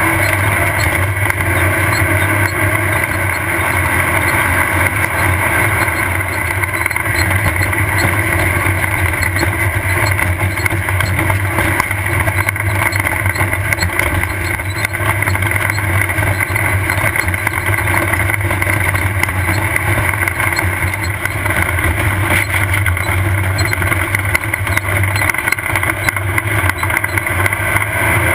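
Off-road desert race buggy's engine running steadily at speed, a loud unbroken drone with many small sharp ticks and knocks over it.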